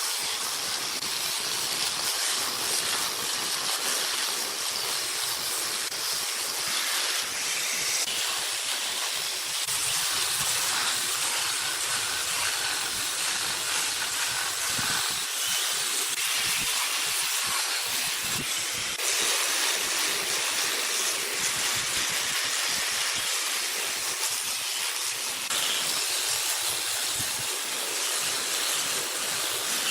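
Wood spinning on a lathe as a turning tool works its surface, giving a steady, dry hiss. The hiss shifts slightly in level and tone every few seconds.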